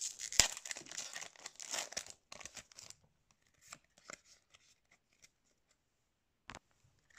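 Japanese Pokémon card booster pack being torn open, its wrapper crackling and crinkling for the first two to three seconds. After that there are only a few faint ticks from the handling.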